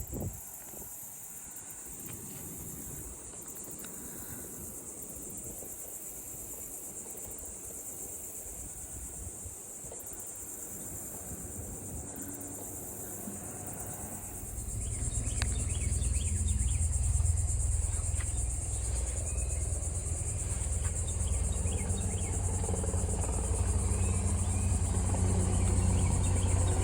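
A steady high-pitched buzz of insects runs throughout. About halfway through, a motor vehicle's engine comes in as a loud low hum and keeps running.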